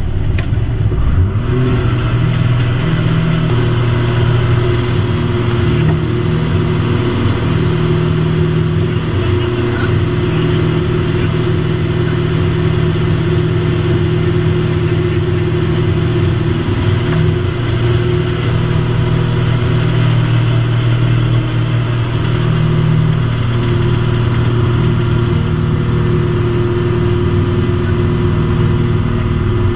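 Votec V252's piston engine and propeller running steadily, heard inside the cockpit, with a short rise in pitch about a second in.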